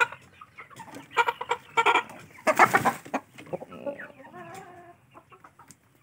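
A flock of chickens, Aseel-type roosters and young crossbred birds, clucking in short calls, with one louder call about two and a half seconds in.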